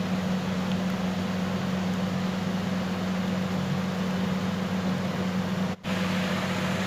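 Steady background hum with an even hiss, broken by a brief dropout near the end.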